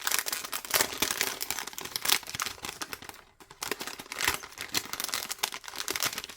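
Paper craft packaging crinkling and rustling as it is handled, a dense run of irregular crackles.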